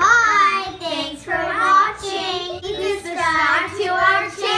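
Young girls singing together, holding and sliding between long notes.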